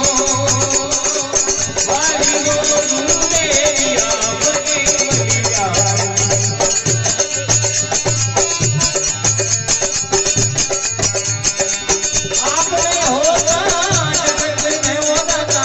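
Instrumental interlude of Indian folk devotional music: a steady, repeating drum beat under a wavering melody line, with a rattling percussion part on top.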